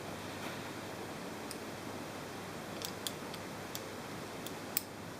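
Several faint, sharp clicks at irregular intervals over a steady background hiss, like small metal parts or tools being handled.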